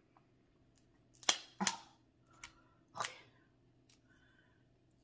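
Dungeness crab leg shells cracking and snapping as they are broken open for eating: a handful of short, sharp cracks spread over a few seconds.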